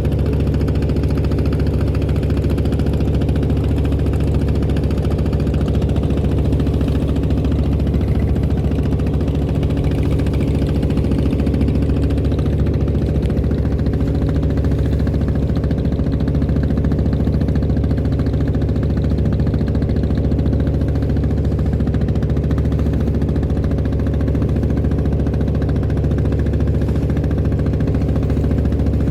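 Klotok boat's engine running steadily at a constant speed, a low, even drone that neither rises nor falls.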